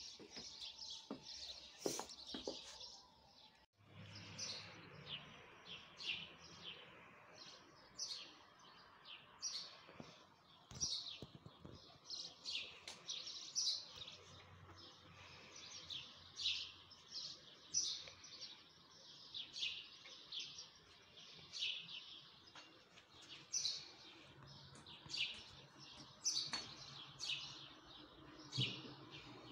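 Small birds chirping again and again outdoors: short, high chirps, one or two a second, throughout. A couple of light knocks about two seconds in, and the sound drops out briefly a little before four seconds.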